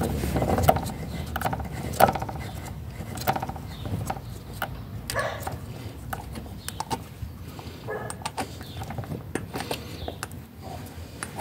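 Scattered clicks, knocks and short scrapes of metal parts being handled and fitted by hand during reassembly of a hand cart's axle holder and rear wheel.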